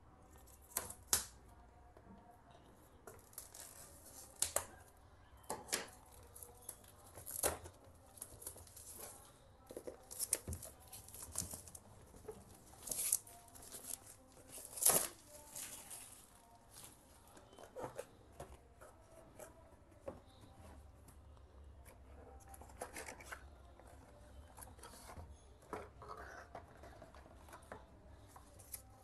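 Clear plastic shrink wrap being cut and torn off a cardboard router box, with irregular sharp crackles and snaps, then the cardboard box being opened.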